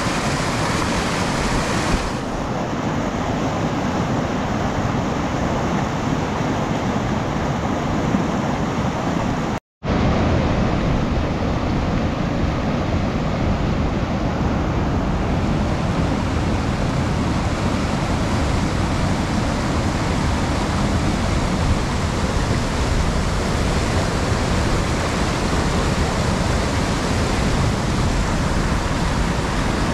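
Whitewater rapids of a fast mountain river rushing over boulders: a steady, loud rushing noise. It cuts out completely for a split second about ten seconds in.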